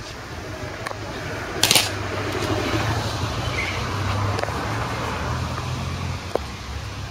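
A sharp stamp of an Evzone guard's hobnailed tsarouchi clog on the stone paving, about two seconds in, with a few fainter clicks, over a steady low background rumble.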